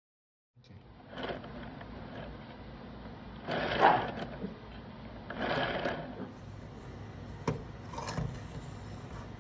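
The plywood wheel and wooden gears of a UGEARS hurdy-gurdy model kit spinning, a dry wooden whirring and rubbing that starts about half a second in and swells louder several times. A few sharp wooden knocks near the end as the model is handled.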